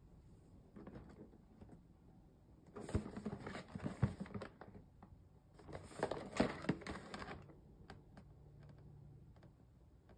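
Cardboard box being picked up and turned over in the hands: two spells of rustling, clicking and scraping against the table, a few seconds apart.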